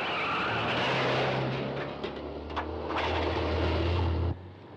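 Citroën 2CV's small air-cooled flat-twin engine running hard as the car speeds along a dusty dirt road, with a dense rushing noise of tyres and road. The sound cuts off abruptly near the end.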